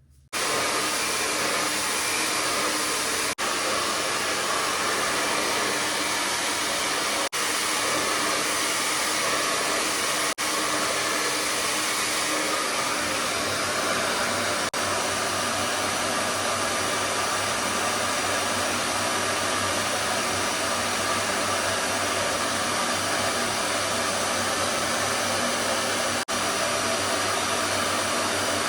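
Hair dryer blowing steadily, with a few very brief gaps.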